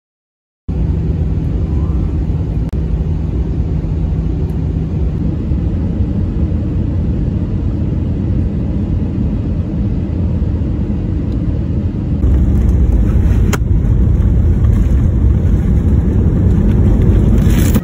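Steady low rumble inside an airliner cabin in flight, from the engines and the air rushing past. It starts suddenly under a second in, and about twelve seconds in it changes to a louder, deeper rumble as the plane rolls on the runway after landing.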